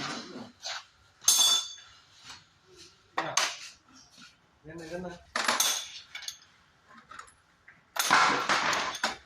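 Metal hand tools and brake parts clinking and clanking: several separate sharp metallic knocks, the longest rattle about eight seconds in.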